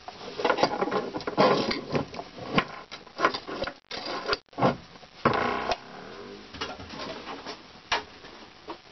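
Steel machinist's square being slid and set against an aluminium plate by hand: scraping and a series of light metal clicks and knocks.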